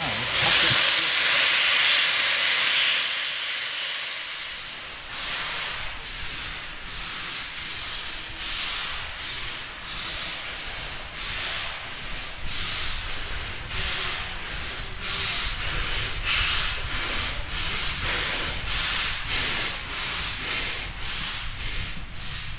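Loud hiss of steam from a steam locomotive's open cylinder drain cocks. About five seconds in, it gives way to a steam locomotive's exhaust chuffing in a steady rhythm, roughly two beats a second, as it works along the line.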